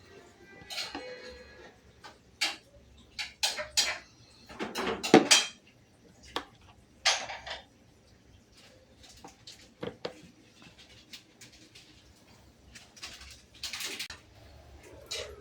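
Dishes and containers being handled and set down, giving irregular clinks and clatters, some with a short ring; the loudest clatter comes about five seconds in.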